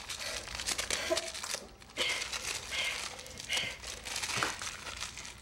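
Irregular crinkling and rustling, like plastic or paper wrapping being handled, with a few small clicks.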